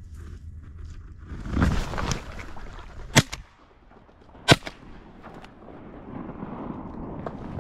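Two shotgun shots about a second and a half apart, fired at a flying mallard. A little before them comes a brief burst of rustling noise over a steady low rumble of wind on the microphone.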